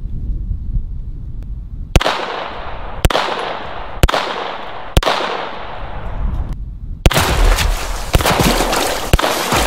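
A VZ-61 Skorpion in .380 ACP fires four single shots about a second apart, each trailing off in an echo. After a short pause, more shots follow over a denser rumble.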